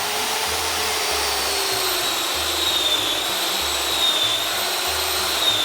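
A motor-driven machine starts up just before and runs steadily, a loud rushing hum with a high whine that wavers slightly in pitch.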